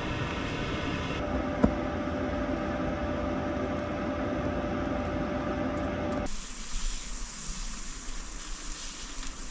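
Steady hiss and rumble of a hagama clay rice pot cooking over a pocket stove's flame, with a click about a second and a half in. The sound changes abruptly about a second in and again about six seconds in.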